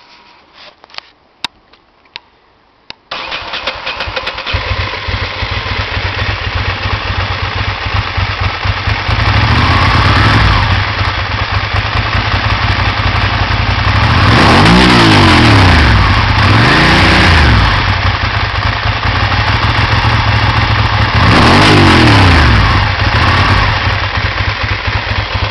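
Ducati Monster 620's air-cooled L-twin engine through a Termignoni carbon silencer. A few clicks come first, then the engine starts about three seconds in and idles. It is then revved up and back down several times, with the loudest revs past the middle and near the end.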